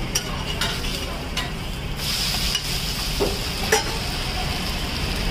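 Uttapam sizzling on a hot iron griddle, the sizzle growing suddenly louder about two seconds in as the uttapam is turned over onto its tomato-onion topping. A metal spatula scrapes and taps on the griddle a few times.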